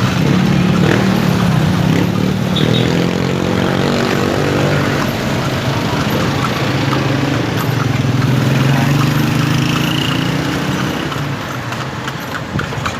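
A motor vehicle engine running close by, steady with a dip in pitch about four seconds in, then easing off near the end. Horse hooves start clip-clopping on the street as it fades.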